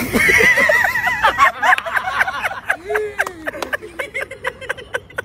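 A person laughing hard: a high, wavering giggle at first, then breaking into a quick run of short breathy bursts.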